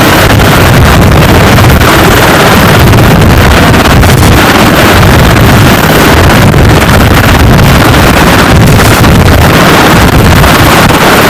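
Navy H-60 Seahawk helicopter hovering low: loud, steady rotor and turbine noise, with wind buffeting the microphone.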